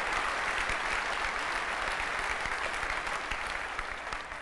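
Large audience applauding, a dense patter of many hands clapping that tapers off toward the end.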